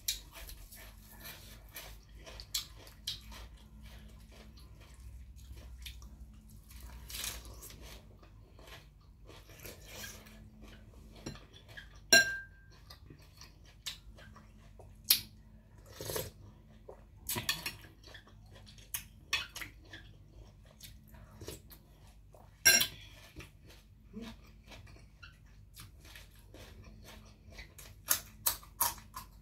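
Close-up eating sounds: chewing, with a few sharp clinks of a metal spoon against a plate, one about twelve seconds in ringing briefly, and a quick run of crisp bites into a raw carrot stick near the end.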